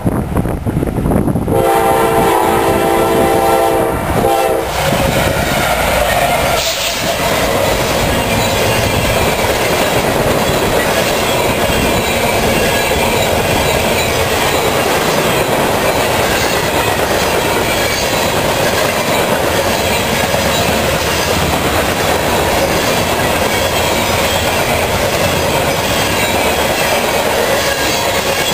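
CSX freight train sounding its horn in a long blast that ends about four and a half seconds in, then passing close by. After that comes the steady rumble and clickety-clack of a long string of loaded open-top hopper cars rolling past on jointed rail, with one sharp knock about seven seconds in.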